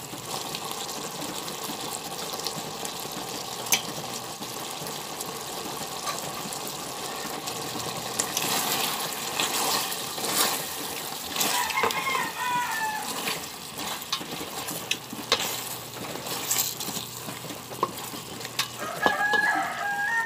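Pork adobo bubbling and sizzling in a pot as the soy-vinegar sauce reduces and thickens, with a plastic spatula stirring the pork and scraping the pot in strokes that come thickest near the middle. A brief wavering call is heard twice in the background, about halfway through and near the end.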